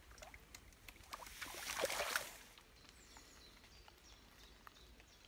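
Water splashing and swishing for about a second, starting about one and a half seconds in, as a small perch is let go from a landing net at the lake edge. Faint scattered ticks around it.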